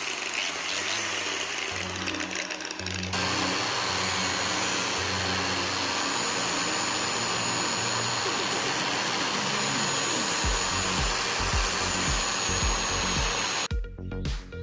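Angle grinder running steadily with a thin high whine, growing louder about three seconds in, then cutting off abruptly near the end.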